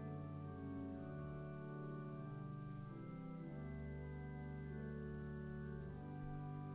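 Soft instrumental church music, most likely organ, playing slow sustained chords that change every two to three seconds.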